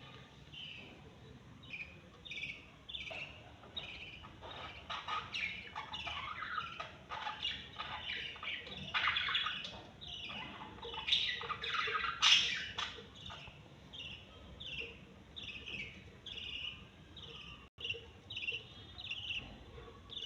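Baby lovebirds squawking: a run of short, harsh calls, each falling in pitch, coming one or two a second, growing busier and louder in the middle with calls overlapping, then thinning out again.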